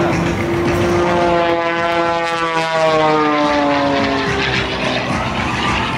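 Propeller-driven airplane flying past: its engine and propeller note sweeps down in pitch through the middle seconds as it goes by.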